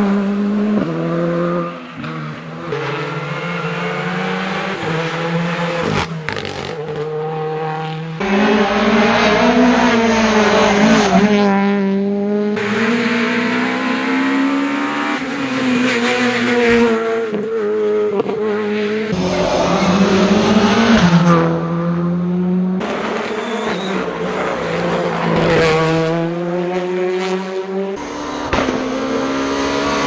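Rally cars, among them a Škoda Fabia R5 and a Peugeot 208 R2, passing one after another at full attack, their engines revving up and dropping again and again through the gear changes.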